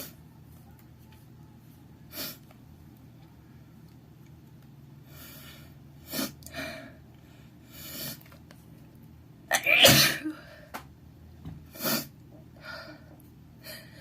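A person sneezing again and again, several short sharp sneezes with breathy intakes between, the loudest about ten seconds in.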